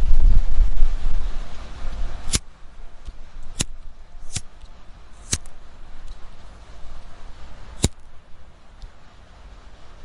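Smoker's breath rushing over the microphone for about two seconds, then quieter, with five sharp clicks spaced unevenly over the next few seconds.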